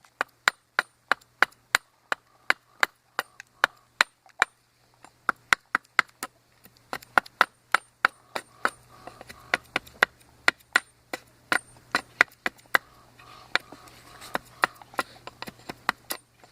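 A blade chopping into a sycamore handle blank, repeated sharp strokes about two a second, with a brief pause about five seconds in. The wood is being cut down by hand to fit a tomahawk head.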